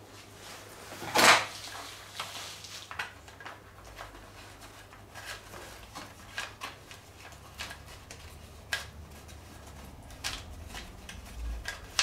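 Handling sounds as fingers tuck electronic shifting wires up inside a carbon bike frame's bottom bracket shell: a sharp knock about a second in, then scattered light clicks and taps.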